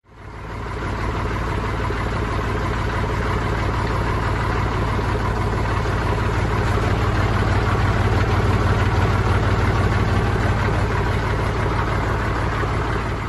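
International McCormick 523 tractor's diesel engine running steadily at low revs, fading in over the first second.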